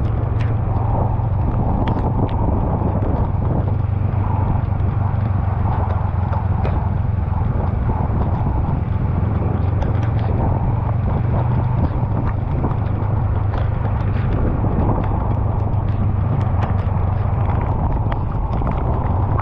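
Honda Rebel 500's parallel-twin engine droning steadily at a constant cruising speed, under a wash of wind and wet-road noise. Scattered light ticks run through it.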